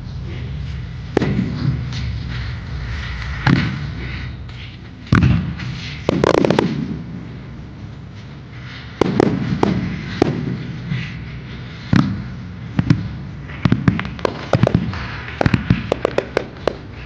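Aerial firework shells bursting: a few separate booms, then from about two-thirds of the way through a fast run of sharp bangs as a starmine salvo fires many shells in quick succession.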